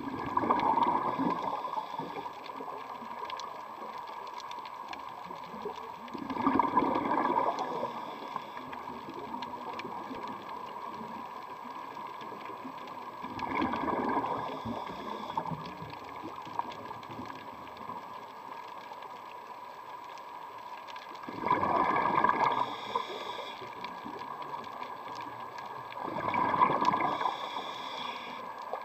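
Scuba diver's breathing heard underwater: five bursts of bubbles from the regulator's exhaust, each about a second and a half long and roughly every six to seven seconds, over a steady faint hum.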